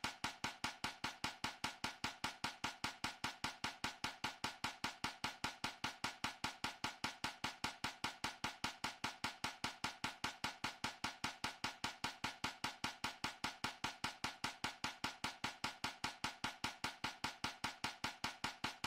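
A fast, perfectly even clicking beat, about four to five sharp ticks a second.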